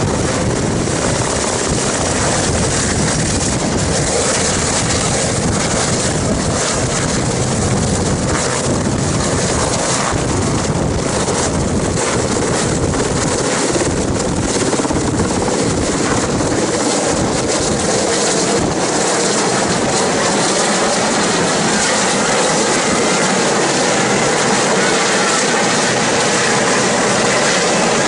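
Helicopter running steadily and loudly, its rotor and turbine noise filling the sound, with a faint high whine coming in about halfway through.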